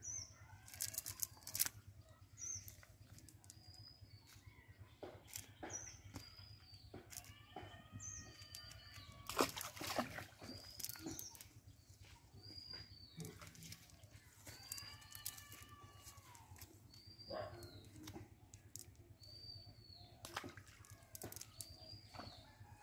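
Birds calling, a short high call repeating about every second or two, with a few longer, lower wavering calls in between. Scattered clicks and rustles from a wet cast net being picked through by hand.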